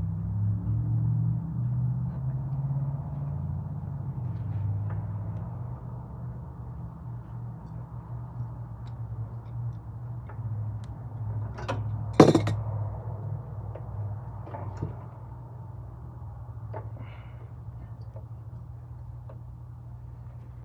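Hand tools and small metal parts clicking and knocking as a snowblower carburetor is taken off and opened up, with one sharp clank about twelve seconds in, over a low steady hum.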